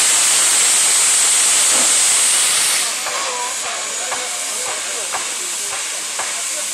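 Soviet P36 4-8-4 steam locomotive venting steam with a loud steady hiss as it approaches, steam blowing from its cylinder drain cocks. The hiss drops in level about three seconds in and carries on more softly.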